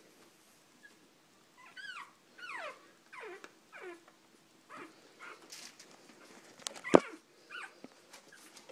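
Three-week-old pug puppies whimpering: a run of high cries, each sliding down in pitch, one after another from about two to four seconds in, then scattered shorter squeaks. A single sharp click about seven seconds in is the loudest sound.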